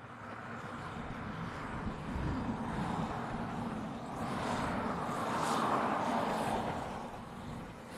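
A narrow-gauge steam train running past; its noise swells to a peak a little past halfway and then fades.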